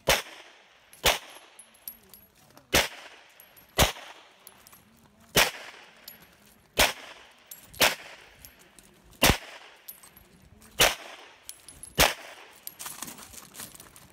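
Ten single shots from a Smith & Wesson M&P M2.0 9mm pistol, fired at an uneven pace about one to one and a half seconds apart, each with a short echo trailing off.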